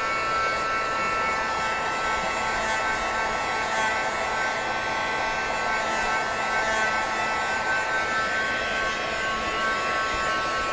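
Handheld craft heat gun running steadily, blowing hot air to dry the paint on a paper journal page. It makes an even rush of air with a steady high motor whine.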